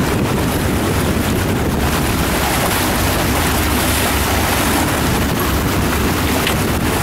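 Water rushing and splashing along the hull of a moving boat, with steady wind rumble on the microphone.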